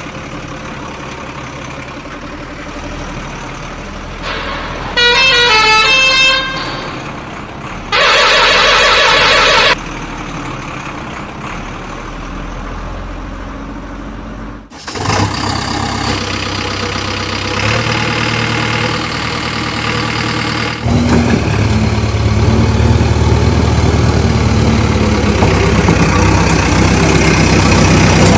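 Truck engine running steadily, broken by horn honks: a short run of falling horn notes about five seconds in and a long loud honk about eight seconds in. About fifteen seconds in it cuts to a heavier engine running, which gets louder and deeper about twenty-one seconds in.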